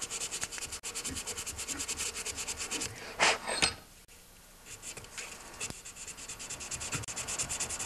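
Sandpaper rubbed by hand in quick back-and-forth strokes on the metal coil-mounting post of an older Tecumseh magneto points plate, cleaning it so the coil seats smoothly. A brief louder scrape comes just past three seconds, then a short pause, and the strokes resume more faintly.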